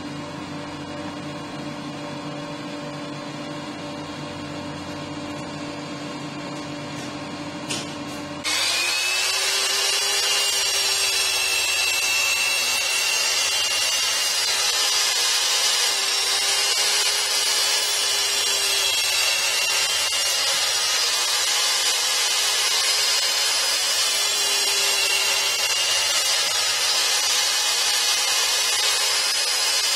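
Electric motor of a Peugeot 254DB 10-inch sliding compound mitre saw starting with a click about eight seconds in, then running steadily at full speed with a high whine. Before that there is only a low, steady hum.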